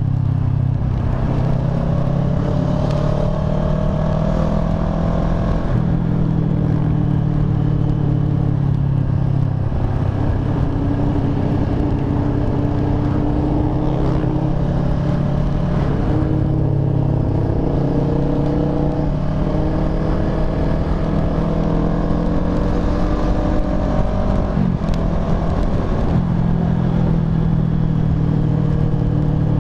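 Kawasaki ER-6n parallel-twin engine running under way at road speed. Its note climbs slowly and falls back several times, as with upshifts while accelerating.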